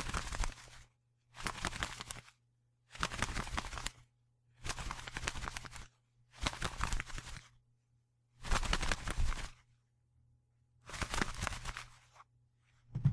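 A bird's wings flapping in a series of fluttering bursts, seven of them, each about a second long with short pauses between.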